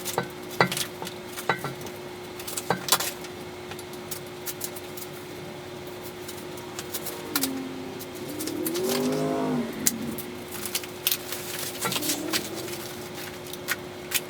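Clicks, knocks and clinks from handling a tow hitch kit's box and its metal hardware during unboxing, over a steady hum from the garage heater fans. A brief squeak that rises and falls comes about eight seconds in.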